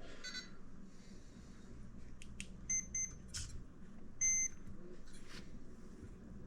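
Short electronic beeps from a scale RC crawler's electronics: a quick stuttering tone at the start, two quick beeps nearly three seconds in and a longer beep a second later. A few light clicks of handling come in between.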